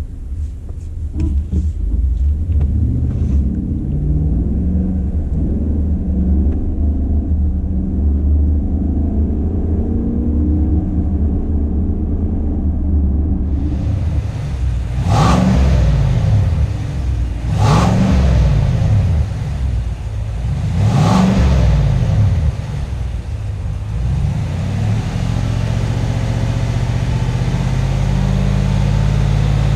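Chevrolet Silverado 6.2-litre V8 on its factory exhaust, heard from inside the cab while driving: the engine note climbs under acceleration, then rises and drops several times as the 10-speed automatic shifts. A rushing road and wind hiss comes in about halfway through.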